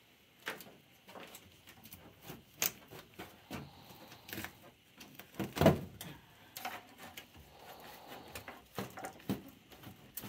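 Scattered knocks, clicks and light rattles of hands handling the sheet-metal panels and parts inside a gas furnace cabinet during disassembly, with one louder clunk about halfway through.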